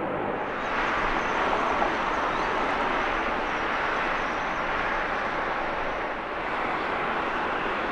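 Jet airliner engine noise: a steady rushing sound with a faint high whine over most of it.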